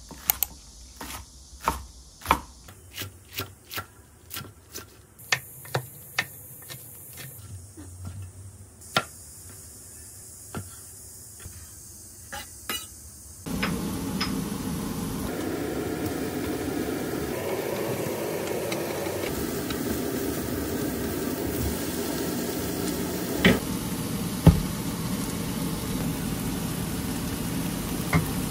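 A kitchen knife chops green onions on a wooden cutting board, in irregular chops about two a second. About halfway through it gives way to minced garlic sizzling steadily in oil in a frying pan, with two sharp knocks near the end.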